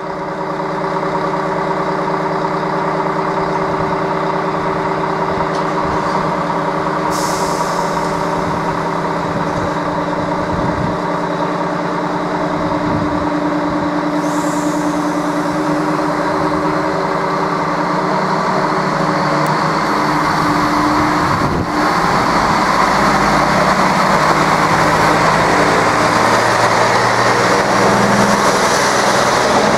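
ČD class 842 diesel railcar's engine running steadily, with two short air hisses about 7 and 14 seconds in. From about 22 seconds in the railcar pulls away and runs close past, so engine and wheel noise grow rougher and a little louder.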